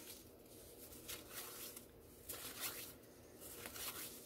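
Faint papery rustling from baseball cards being handled and slid one behind another while being flipped through: a series of short swishes, roughly one every half second.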